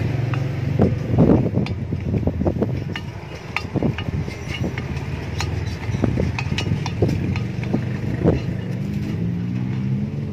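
Irregular metal clicks, taps and scrapes of a hex key and screwdriver working bolts into an aluminium wheel flange on a motorcycle alloy wheel, over a steady low drone.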